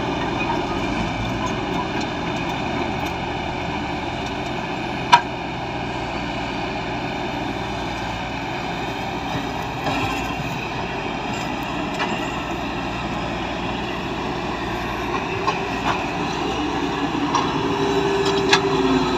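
Diesel engine of heavy earthmoving machinery running steadily. One sharp metallic clank comes about five seconds in, and a few lighter knocks follow near the end, where a steady whine comes in.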